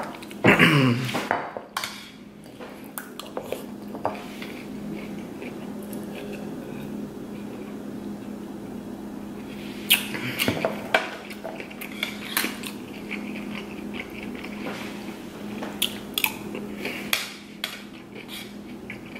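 Metal spoon clinking and scraping against a plate of rice and fried crab while eating, with several sharp clinks scattered through, the loudest about ten seconds in.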